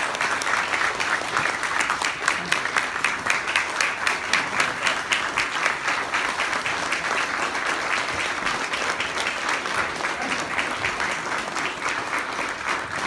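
Audience applauding steadily, a dense patter of many hands with some louder claps close by standing out. It eases off a little near the end.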